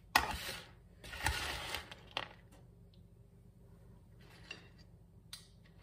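Metal kitchen tongs lifting fries out of a paper package and onto a metal tray: two short scraping, rustling bursts in the first two seconds, then a few lighter clicks and taps.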